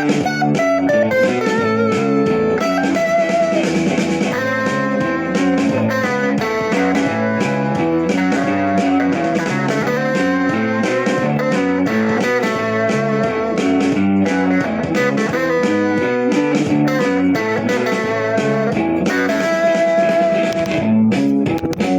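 Music: a plucked guitar playing a bluesy tune.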